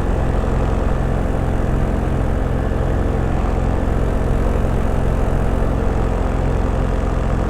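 Paramotor engine and propeller running at a steady throttle, a constant drone with no change in pitch.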